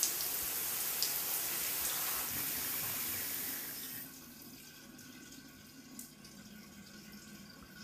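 Shower water running steadily in a tiled shower room, cutting off about four seconds in; after that only faint drips in the quiet room.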